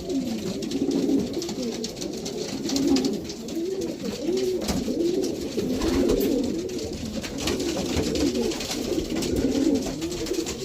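Many racing pigeons cooing together in a small loft, a dense overlapping chorus of low rolling coos, with a few sharp clicks and flutters among them.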